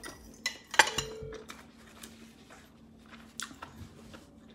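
A metal utensil clinking against a ceramic bowl: a few sharp knocks in the first second, one leaving a short ring, then a few faint ticks near the end.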